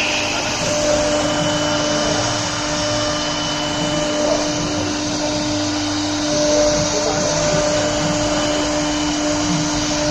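LR-1325E CNC router's spindle running under load while cutting MDF: a steady whine over a continuous rushing noise.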